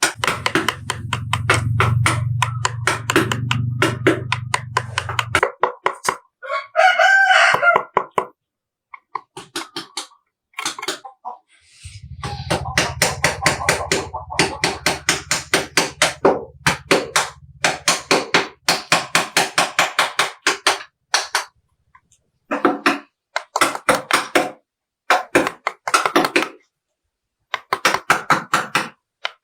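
Mallet striking a carving chisel into wood in quick runs of about five taps a second, broken by short pauses. A rooster crows once about seven seconds in, and a low hum comes and goes twice.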